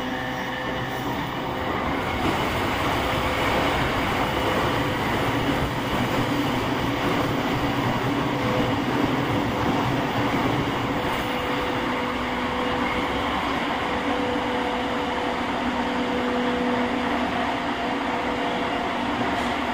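Running noise heard inside an E231-1000 series electric train (equipment-renewed car) moving at steady speed: a dense rumble of wheels on rail with a steady hum, getting a little louder about two seconds in.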